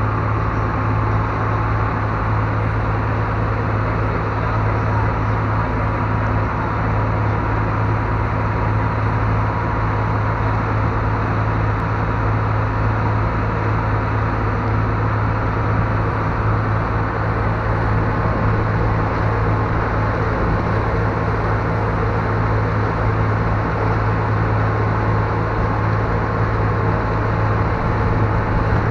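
Passenger ferry's engines running steadily under way: a constant low drone with an even rushing noise over it.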